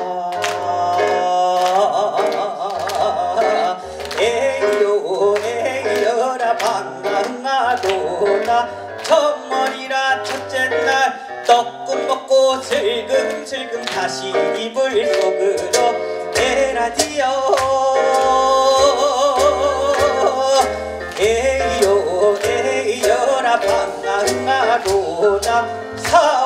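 Korean gugak fusion song performed live: voices singing a wavering, ornamented melody over plucked double bass, keyboard and steady drum hits.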